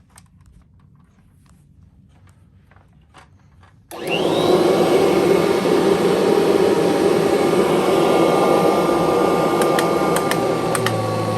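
A 1989 Kirby Legend II upright vacuum cleaner switched on about four seconds in, its motor whine rising quickly as it spins up and then running steadily, with a few sharp ticks near the end.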